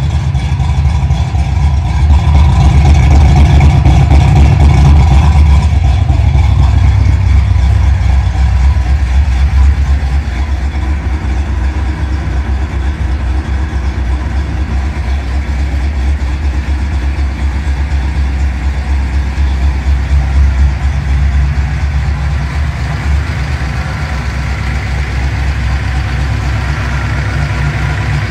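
1988 Mustang GT's modified 306 cu. in. small-block Ford V8 idling steadily, breathing through long-tube headers and Mac pro-dump mufflers. It is a deep, even engine sound, louder for the first ten seconds or so, then settling a little quieter.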